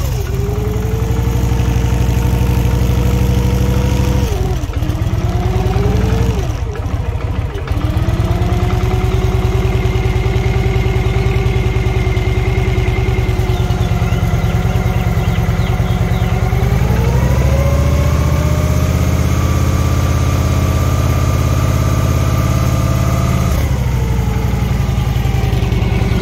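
2000 Victory V92SC's V-twin engine running just after starting. Its speed dips and wavers about four to seven seconds in, settles at idle, then is raised and held higher for several seconds before dropping back to idle near the end.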